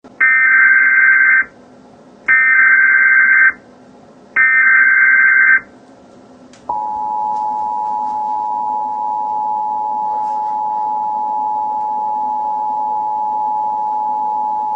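Emergency Alert System tones: three short bursts of SAME header data, a little over a second each and about two seconds apart, then the steady two-tone EAS attention signal, starting about seven seconds in and held for about eight seconds.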